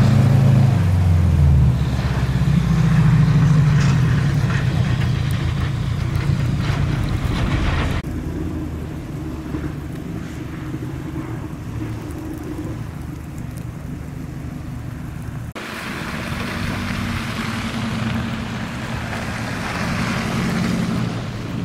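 Vehicle engine running with a low, steady hum and a haze of road or wind noise over it. The sound changes abruptly about eight seconds in and again shortly before sixteen seconds, then carries on.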